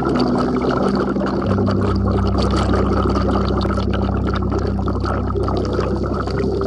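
Bubbling, gurgling water noise that starts just before and stops just after, over the steady low held notes of background music.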